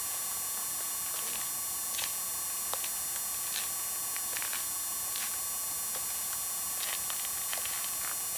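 Crutch tips and footsteps tapping and scraping on a snowy, icy sidewalk, short irregular clicks every half second or so, over a steady thin whine and tape hiss.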